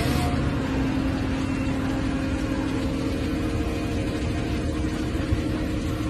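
Excavator engine running steadily with a constant low drone.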